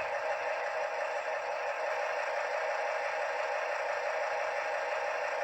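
Sound-fitted OO gauge model of a Class 70 diesel locomotive, its decoder playing the engine idling steadily after a cold start. It comes through the model's small onboard speaker, so it sounds thin, with little bass.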